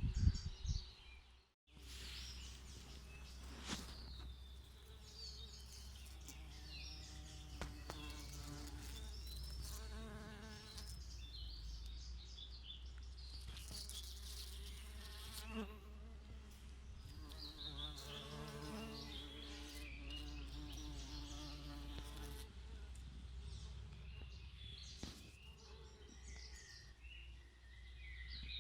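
Bees buzzing around flowers, the buzz swelling and fading as they fly close and away, with birds chirping in the background.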